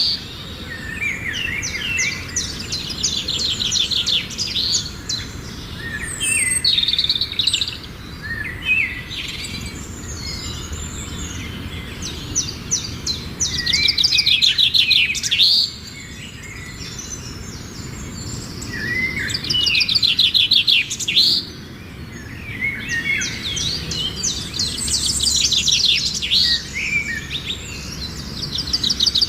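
Songbird singing: phrases of fast trills and whistled notes, each lasting a second or three, repeated with short pauses.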